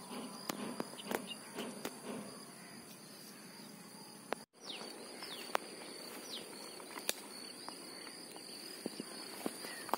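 Quiet outdoor ambience: a steady high-pitched drone of insects such as crickets, with a few short falling bird chirps a little past the middle and scattered small clicks and rustles. The sound drops out for an instant about halfway through.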